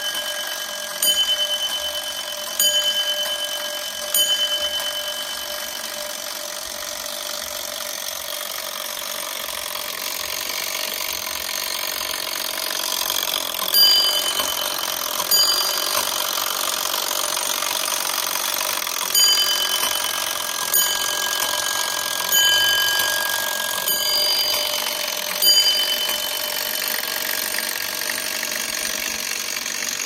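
Brass dome bell of a circa-1900 electric railway block signalling instrument struck singly about every one and a half seconds, in groups of three, then two, then five strokes, each stroke ringing on and fading. Under the strokes runs the steady whirr of the Gamewell fire alarm's clockwork gear train.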